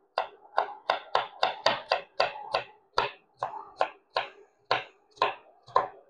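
Small kitchen knife chopping potato into small cubes on a wooden cutting board: a run of sharp knocks, about four a second, slowing a little in the second half.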